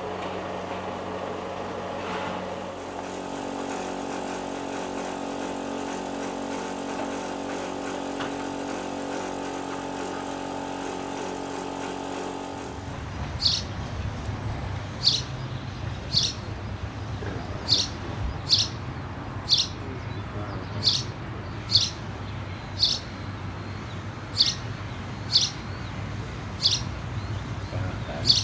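A steady hum with several held tones. Then a low rumble from a small steam locomotive moving slowly in a cloud of its own steam, with short, sharp bird chirps roughly once a second over it.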